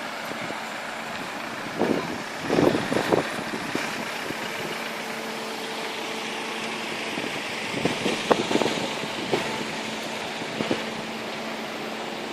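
A vehicle engine running steadily as it is driven through deep floodwater, over a constant rush of water. There are louder splashes around two seconds in and again around eight seconds in.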